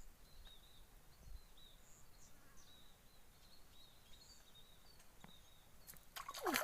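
Faint outdoor ambience: a low hiss with many short, high chirps repeating throughout, from birds or insects. A brief burst of clicking and rustling comes near the end.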